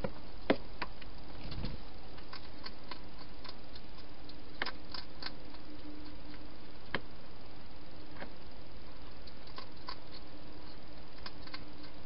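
Hedgehog eating from bowls in a plastic feeding box: scattered sharp clicks and crunches of chewing over a steady hiss. A louder knock about half a second in and a short low rumble a second later come as a cat brushes close past the camera.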